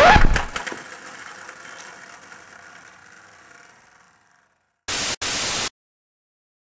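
Intro music cuts off with a short rising sweep, leaving an echo that fades away over about four seconds. About five seconds in come two short bursts of static hiss.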